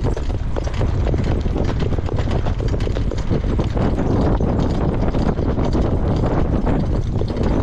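A harness horse's hoofbeats in a fast, steady rhythm on a dirt track, heard from the cart behind it, over a steady rush of wind on the microphone.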